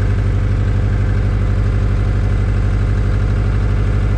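Ford Ranger engine running steadily with an even, rapid pulse. The engine has a rod knock, knocking a little bit.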